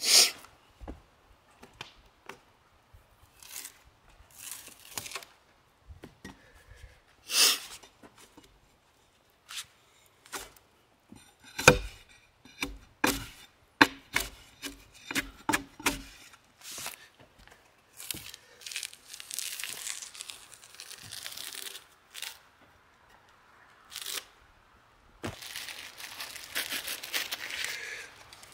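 A long-handled bark spud knocking into a freshly felled log and tearing strips of bark from it: sharp knocks, the loudest at the start and about seven seconds in, a run of quicker knocks a little before the middle, and ripping bark. Near the end, a steady hiss and crackle of a wood fire.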